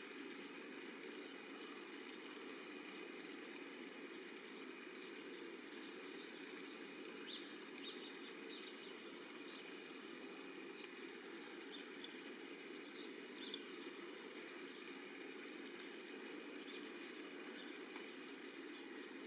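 Steady rain falling, a soft even hiss, with scattered faint short high ticks or peeps through the middle and one sharper tap about thirteen seconds in.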